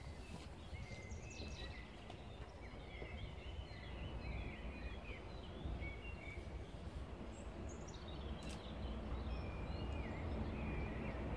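Small songbirds chirping, many short high notes throughout, over a low steady outdoor rumble.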